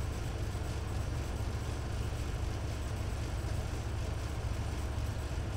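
Steady low hum with an even hiss: the room's background noise, with no other event.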